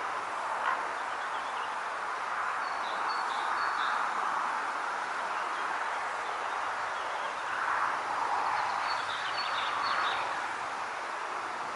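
Pond-side nature ambience: wind in the foliage, rising and falling in gusts, with a small bird giving short bursts of high chirps twice.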